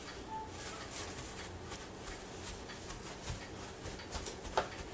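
Soft, irregular dabs and rustles of a paper towel being patted over raw chicken thighs to dry them, with one sharper tap near the end.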